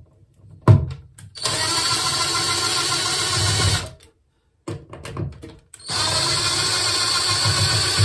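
Popoman cordless drill-driver running in two steady bursts of about two and a half seconds each, backing out an outlet's two Phillips mounting screws. A sharp click comes just before the first burst.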